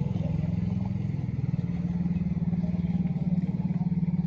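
Small motorcycle engine running steadily at low revs.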